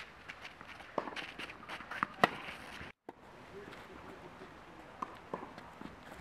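Tennis balls struck by rackets in a rally on a clay court: a few sharp pops, the loudest a little over two seconds in, with footsteps scuffing on the clay between them.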